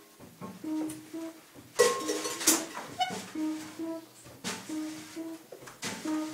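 Free-jazz quartet of tenor saxophone, piano, double bass and drums improvising live: a short two-note figure repeats a little more than once a second, broken by scattered drum and cymbal strikes, the loudest about two seconds in.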